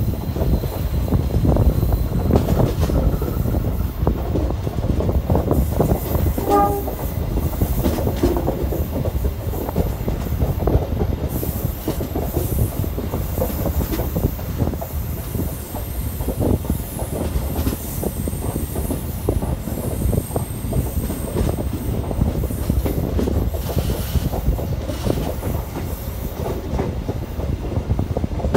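A passenger train coach running along the track, heard from its open doorway: a steady rumble with the wheels clattering over rail joints.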